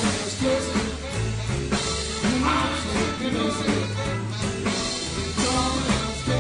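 Blues-rock band playing: electric guitar, bass and drum kit with a steady beat.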